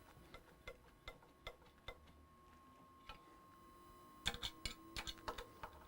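Scattered light clicks and taps of small hard objects being handled, a few spaced out at first, then a quick run of them near the end.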